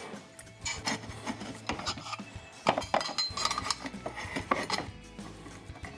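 A pair of 9/16 wrenches working the ratchet pawl's bolt and nut off a camper lift crank: irregular metal clinks and taps with some scraping and rubbing.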